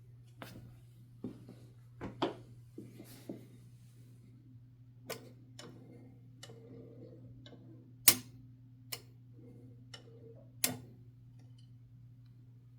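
1969 Adler J5 manual typewriter being worked slowly: about a dozen separate sharp mechanical clicks and clacks at uneven intervals, two of them much louder, about eight seconds in and again near the end, over a steady low hum.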